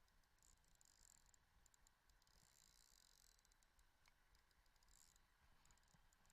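Near silence, with faint spells of rapid, fine clicking.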